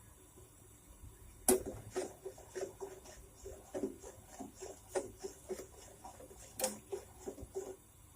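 Irregular light clicks and taps, a few a second, from a pan of ginger juice and sugar heating to the boil on the stove. They stop near the end.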